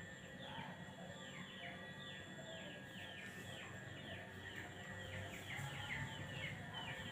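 Small birds chirping faintly: many quick, high chirps, each falling in pitch, overlapping one after another.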